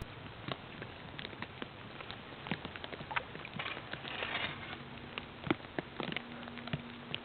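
Falling snow ticking on dry leaves: a scattered, irregular patter of light ticks over a soft hiss, with a faint steady hum coming in about two-thirds of the way through.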